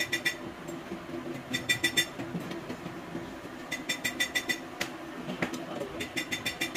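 Ratchet wrench on a long handle clicking in four short bursts of quick, ringing clicks, a couple of seconds apart, as bolts on a bus diesel engine's flywheel housing are turned. A steady low hum runs underneath.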